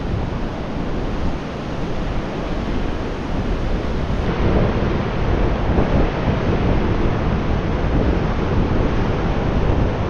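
Ocean surf rushing on a sandy beach, mixed with wind buffeting the microphone. The sound changes abruptly about four seconds in, becoming a little louder and fuller.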